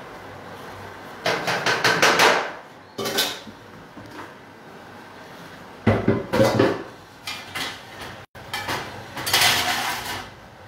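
Kitchen utensils and dishes clattering and knocking on the counter and stove in several bursts of quick, sharp strikes.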